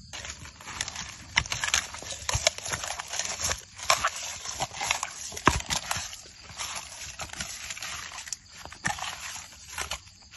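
Gloved hand kneading raw pig ears with marinade, ginger and lemongrass in a metal bowl: wet squelching with irregular sharp clicks and knocks.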